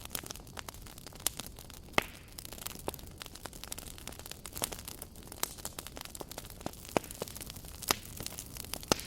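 Campfire crackling: a wood fire's steady low hiss with irregular small snaps, and louder pops about two seconds in, near the eight-second mark and just before the end.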